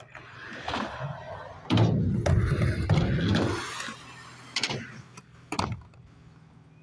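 Skateboard rolling over concrete, its wheels giving a loud rumble for about two seconds as it passes close by, with sharp clacks of the board and trucks before and after it, the last two as it rides up onto a metal ramp.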